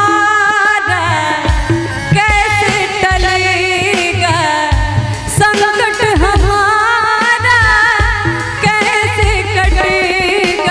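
A woman singing a Hindi devotional bhajan into a microphone over a PA, her melody wavering with ornaments and vibrato, accompanied by harmonium drones and tabla strokes with deep bass thumps.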